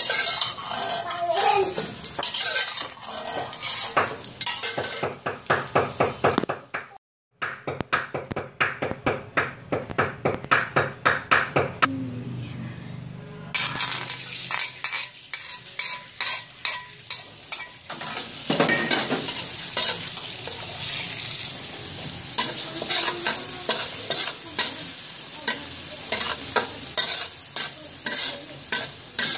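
Metal spatula scraping and clinking in a wok of hot oil as fried shiitake mushrooms are scooped out, in quick repeated strokes. About halfway through, a sizzle starts suddenly as minced garlic goes into the oil, and it keeps frying under steady stirring strokes of the spatula.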